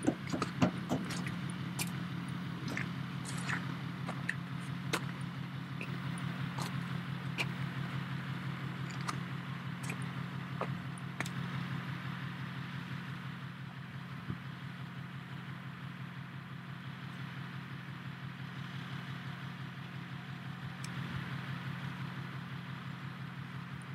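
Hi-rail pickup truck's engine idling steadily, with scattered sharp clicks and ticks in the first half.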